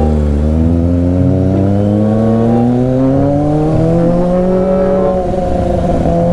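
Kawasaki ZX-25R inline-four engine breathing through an aftermarket Orion open muffler, pulling under load with its pitch rising steadily for about five seconds, then easing off slightly near the end.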